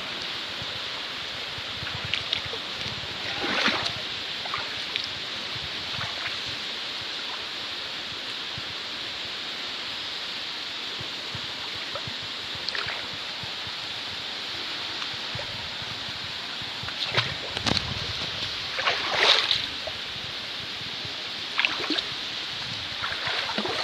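Steady rushing of a flowing river, with a few brief louder noises a few seconds in and again later on.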